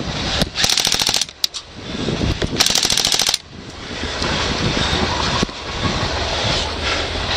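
Airsoft gun firing two short full-auto bursts a little over a second apart, each a rapid string of sharp clicks, with a steady rushing of wind and movement noise behind.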